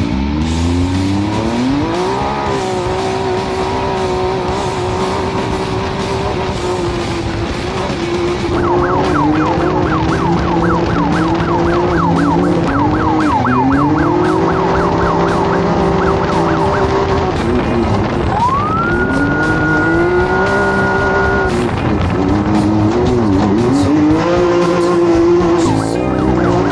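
Off-road race vehicle engine running hard, its pitch rising and falling as it revs and lets off, mixed with background music. Past the middle a high tone glides up and holds for a few seconds.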